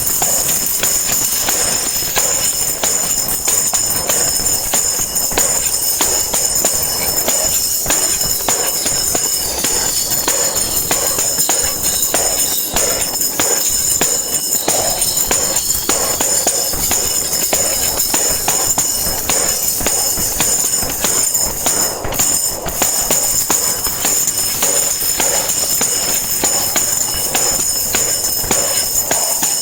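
Tambourine shaken and struck continuously, its metal jingles rattling in a dense, steady stream with frequent strikes.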